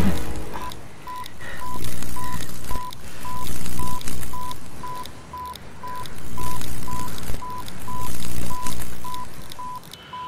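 Small handheld electronic device beeping: short beeps at one steady pitch, about two a second, like a tracker or scanner signal. Under them a low rumbling drone swells and fades every few seconds and is the loudest sound.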